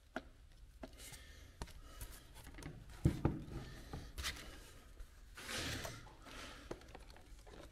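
Handling noise of a black HDPE plastic panel with a switch panel mounted on it: light clicks, a sharp knock about three seconds in as it is set down on the wooden workbench, then scraping and rubbing as it is slid and repositioned.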